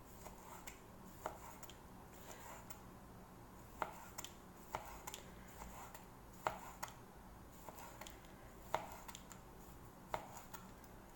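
Chef's knife slicing a sausage into rounds on a plastic cutting board: faint, irregularly spaced knocks of the blade meeting the board, about a dozen of them.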